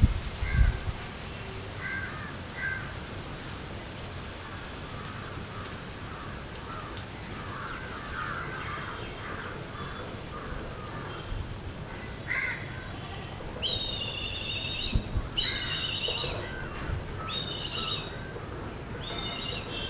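A brown hawk calling: four high, wavering calls of about a second each in the last third, after scattered softer chirps.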